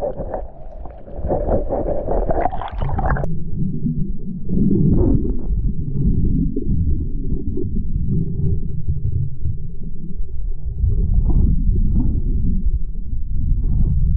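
Water splashing and sloshing, then about three seconds in the sound turns suddenly muffled and low as the microphone goes under water, leaving a steady underwater rumble with gurgling.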